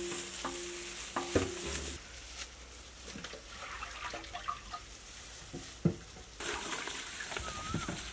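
Mangoes being peeled by hands in plastic gloves: soft rustling and scraping with scattered light taps, over a steady hiss that drops away about two seconds in and comes back after about six.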